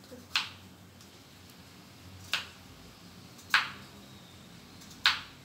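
Kitchen knife slicing through a peeled potato and striking a wooden chopping board: four sharp knocks at uneven intervals, one to two seconds apart.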